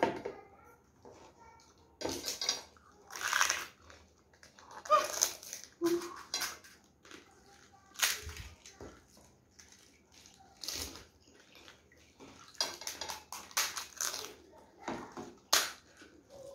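Crisp, hollow panipuri (fuchka) shells cracked open with fingers and crunched while being eaten, in irregular clusters of short crackling bursts with quiet gaps between.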